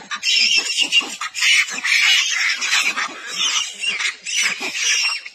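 Macaques screaming: high-pitched, overlapping squeals in rapid succession.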